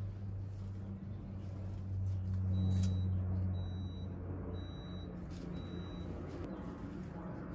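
A vehicle engine running with a low hum that swells and then fades, while four short high beeps sound about a second apart.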